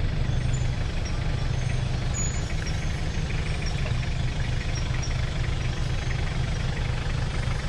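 Four-wheel-drive vehicle's engine idling steadily.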